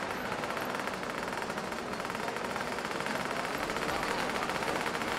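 Vintage largeframe Vespa scooters' single-cylinder two-stroke engines racing through a corner, a steady buzz made of a fast, even string of exhaust pulses.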